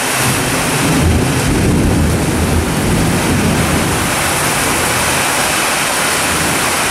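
Heavy rain pouring down steadily, with a low rumble of thunder that swells in the first seconds and fades away about halfway through.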